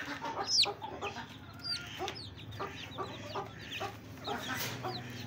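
Chicken chick peeping: a run of short, high-pitched, falling cheeps, several a second, with some lower clucking calls among them.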